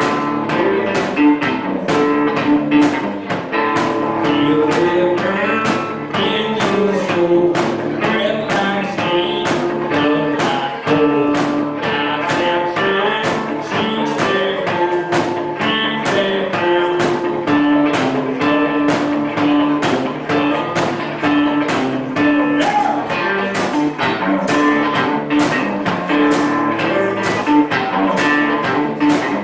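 Guitar-led song played live, with a steady strummed rhythm.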